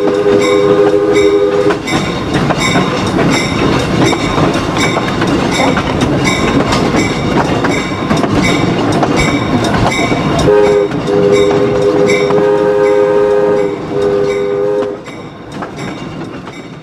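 A train's multi-chime air horn sounds a chord of several notes, heard from aboard the moving train: once at the start and again in a series of long blasts from about ten seconds in, as the train approaches a road grade crossing. Underneath, the wheels rumble with steady clickety-clack over the rail joints. The sound fades near the end.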